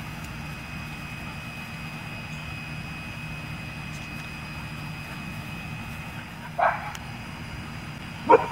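A dog giving two short barks, one about six and a half seconds in and a louder one near the end, over a steady low background hum.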